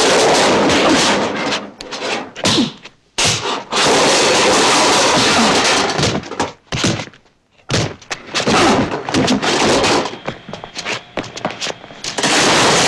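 Foley fight-scene effects: a dense run of thuds, slams and breaking crashes, with brief breaks about three and seven seconds in.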